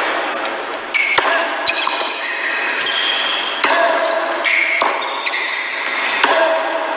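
Tennis point in play on an indoor hard court: a tennis ball is struck and bounces several times, sharp pops spaced about a second or so apart, with sneakers squeaking briefly on the court between them.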